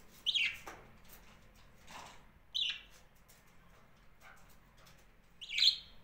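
Budgerigars chirping: three sharp, short calls a few seconds apart, the first dropping in pitch and the last the loudest, with a few softer chirps between.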